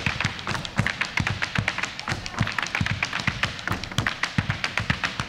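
Malambo percussion: boleadoras swung and struck against the stage floor in a fast, even rhythm of sharp taps, over deeper beats of a bombo legüero drum.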